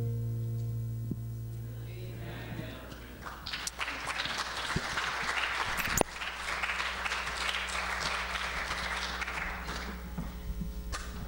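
The last acoustic guitar chord rings out and fades, then a congregation applauds for about seven seconds. About six seconds in a sharp pop sounds, as the guitar lead is pulled from the amplifier, and a low electrical hum carries on after it.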